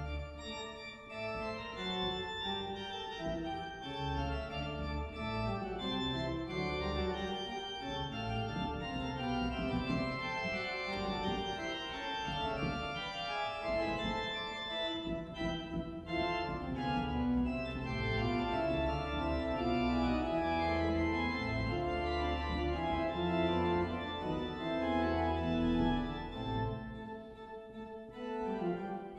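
Church organ playing a slow piece of held chords over a deep bass line, growing quieter near the end.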